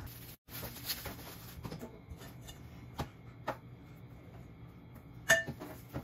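Kitchen handling sounds: a few light knocks and clinks, the loudest a short ringing clink about five seconds in, as cooked rice is scooped from a rice cooker's metal inner pot with a rice paddle and wrapped in plastic wrap.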